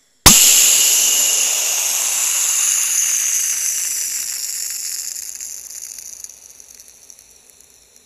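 Pressurized Cool Whip whipped-cream can bursting underwater: one sudden sharp bang, then a hiss that fades away over about seven seconds. The burst came from water forced in through the valve, which compressed the can's nitrous oxide far beyond its normal pressure.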